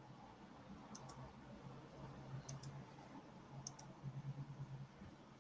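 Faint computer mouse clicks: three quick pairs of clicks, a second or more apart, over a faint low hum.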